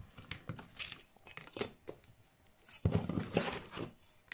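Crinkling and rustling of a diamond-painting canvas being handled and measured with a metal ruler: a run of short, irregular scrapes, with a heavier bout of handling about three seconds in.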